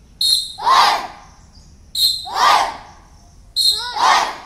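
A group of children shouting together in unison, three times about every second and a half, keeping time with a martial arts drill. Each shout comes just after a short, sharp, high tone.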